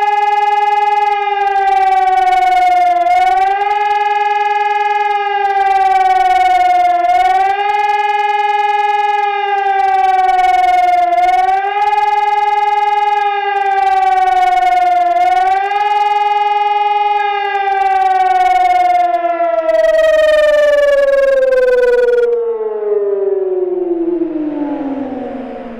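Electronic high-performance civil-defence siren sounding the German warning signal for danger: a loud wail that rises and falls about every four seconds. After about 17 seconds it slides down in one long fall and fades out as the signal ends.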